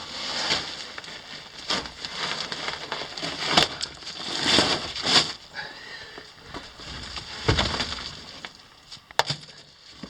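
Rocks and loose dirt being shifted by hand in a mine shaft: rough scraping swells broken by several sharp clacks of stone on stone.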